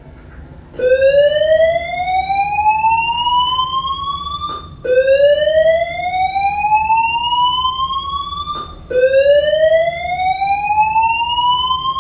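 Fire alarm voice-evacuation system sounding a whoop tone: three loud rising sweeps, each about four seconds long, the signal to evacuate the building.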